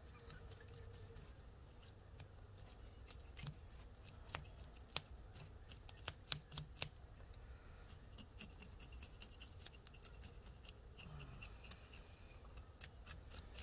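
Scales being scraped off an opaleye perch by hand: a faint run of short, irregular scratchy clicks, stroke after stroke.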